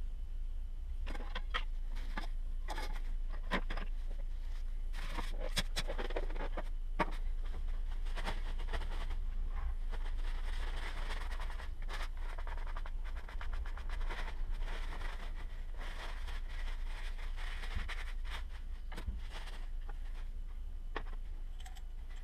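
Hand work on parts at a bench: scattered clicks, light knocks and scraping, over a steady low hum.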